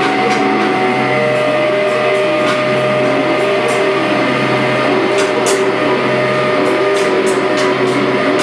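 Live amplified noise music: a dense, steady drone with a held tone and a wavering pitch that rises and falls about every second and a half, under scattered crackles.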